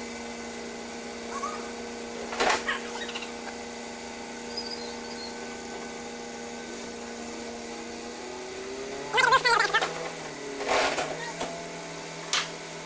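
A steady mechanical hum runs throughout, with a few sharp metallic knocks and a loud wavering squeal or creak about nine seconds in.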